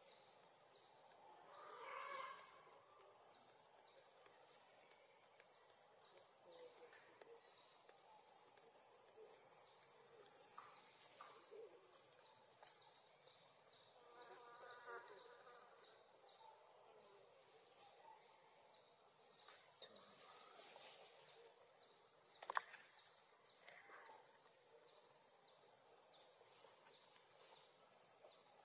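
Faint insects chirping in a steady, evenly repeating high rhythm, with a brief buzzing swell about ten seconds in. A short pulsing call comes around the middle, and a single sharp click a little after twenty seconds.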